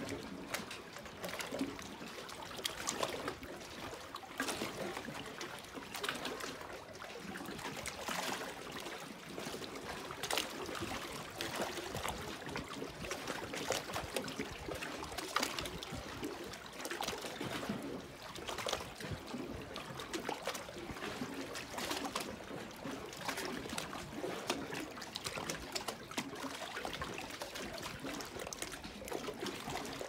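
Small lake waves lapping against shoreline boulders: a steady wash of water with irregular little splashes and trickles among the rocks.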